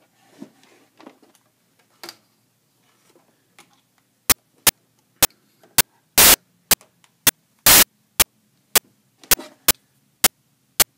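Digital recording glitch: sharp, loud pops evenly spaced about two a second, starting about four seconds in, after a few faint handling rustles.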